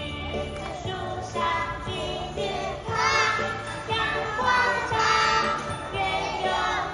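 A group of young children singing a Chinese nursery rhyme together over a backing music track.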